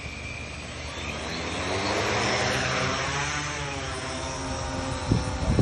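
Quadcopter spraying drone's motors and propellers whirring as it spins up and lifts off the grass, the pitch shifting as it climbs. A few low thumps come near the end.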